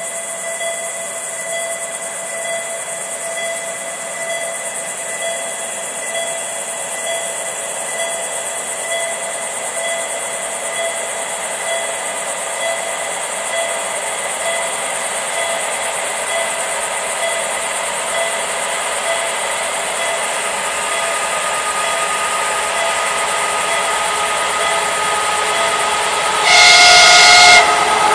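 C30-M diesel locomotive hauling tank cars on approach, its noise slowly growing louder over a steady high hiss. Near the end, one horn blast of about a second.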